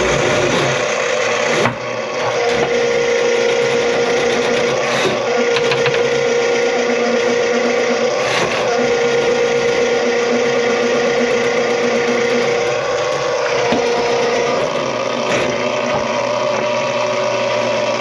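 Electric drain snake (drain auger) motor running steadily with a constant hum, working through a grease-clogged kitchen drain line; the sound dips briefly about two seconds in and there are a few short knocks.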